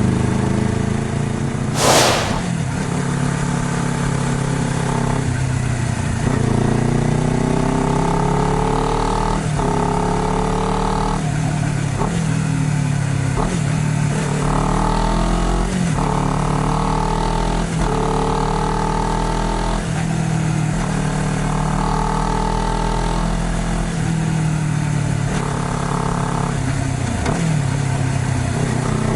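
Honda CBR250RR motorcycle engine under way, revving up and shifting repeatedly, the pitch climbing and dropping every couple of seconds. A short loud burst of noise about two seconds in.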